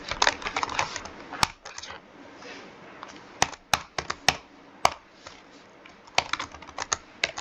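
Typing on a computer keyboard: irregular key clicks, sparse in the middle and coming in a quick run near the end.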